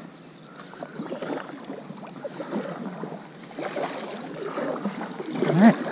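Water lapping and gurgling against the hull of a small fishing boat, uneven and ongoing, with a brief louder rising sound near the end.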